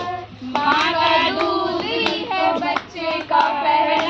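Women singing a song, with several people clapping along to the beat. The singing breaks briefly just after the start and again just before three seconds in.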